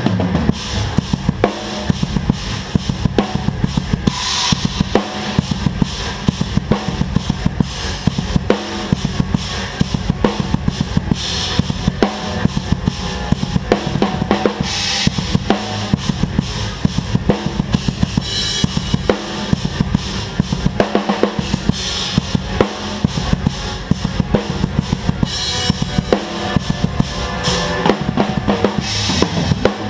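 A full drum kit played hard at close range in a live band: a fast, steady beat of bass drum and snare, with a cymbal crash every three to four seconds, over a held low note from the rest of the band.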